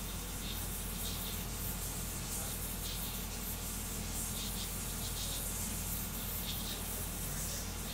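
3D printer running a fast print: a steady whirring hiss from its fans and stepper-driven motion, with faint repeating swells as the toolhead moves back and forth.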